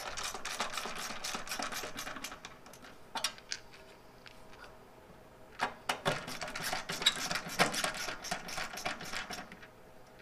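Hand screwdriver driving the headlight trim ring screws on a 1977 Chevy C10: rapid metallic clicking and scraping in two spells, one in about the first two seconds and a longer one from about six to nine and a half seconds, with a few lone clicks between.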